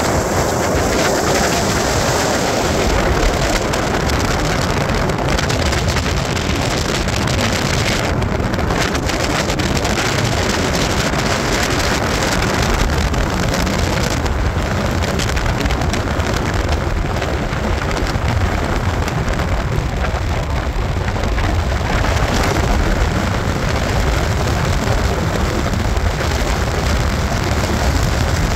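Ford pickup driving along a dirt road: steady tyre noise with a fine gravel crackle, and wind noise.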